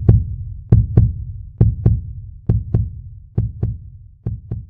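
Heartbeat sound effect in a channel intro: pairs of deep thumps, a little under one pair a second, growing fainter near the end.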